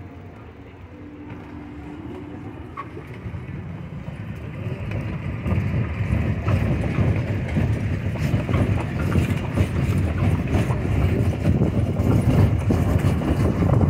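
Horse-drawn carriage in motion: a dense clatter of the wheels and body rattling over the street, with the horse's hooves mixed in. It grows louder about five seconds in.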